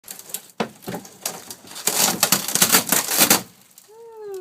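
Old travel-trailer interior wood paneling being pried and ripped out: a run of irregular cracking, splintering and crunching that grows densest and loudest over the second half, then stops.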